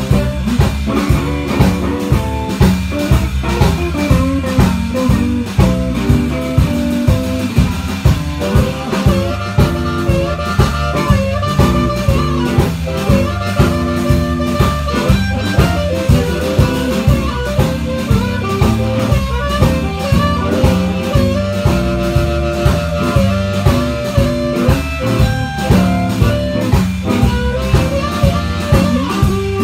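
Blues instrumental played live by a small band: a harmonica plays held lead notes over electric guitar and a drum kit keeping a steady beat, about two strong beats a second.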